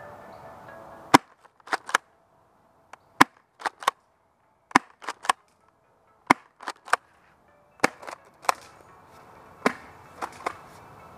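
Crosman pistol-grip tri-shot spring airsoft shotgun fired six times, a sharp snap about every one and a half seconds. Each shot is followed by two quieter clacks as the pump is racked back and forward to cock it again.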